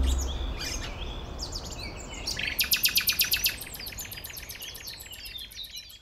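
Songbirds chirping and singing, with a loud rapid trill about two and a half seconds in that lasts about a second. The tail of a music track's low notes dies away at the start, and the birdsong fades out at the end.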